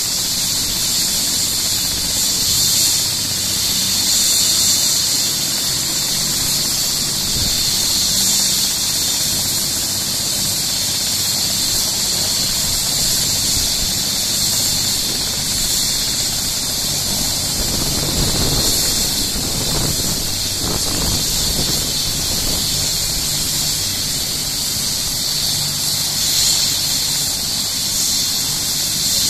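Bell 427 helicopter's twin turboshaft engines running on the pad: a steady high turbine whine with a low hum beneath.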